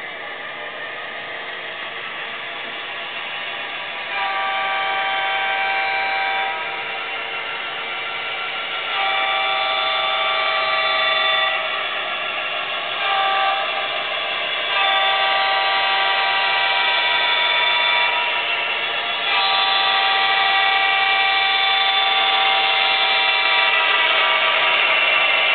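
Model BNSF diesel locomotive's sound system blowing a multi-chime air horn over a steady hiss. The horn gives long, long, short, long blasts, the grade-crossing signal, and then starts another long blast.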